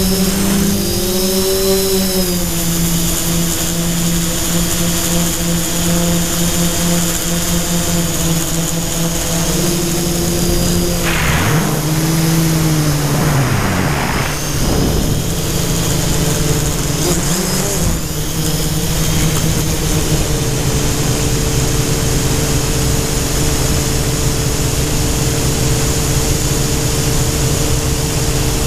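Quadcopter's brushless motors and propellers whining steadily in flight, heard from the onboard GoPro. About halfway through the pitch swoops down and back up as the motors change speed, and it wavers again briefly a few seconds later.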